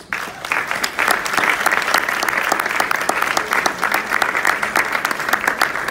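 Audience applauding: many hands clapping at once, building over the first second and then holding steady.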